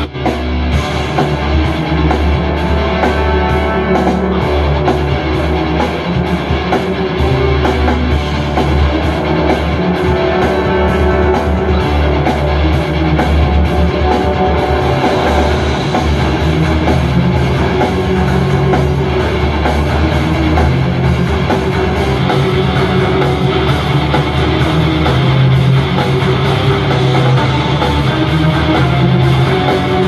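Anker Soundcore Flare Bluetooth speaker playing rock music with electric guitar and drums. The music steadies after a brief drop at the very start, where playback switches over to this speaker.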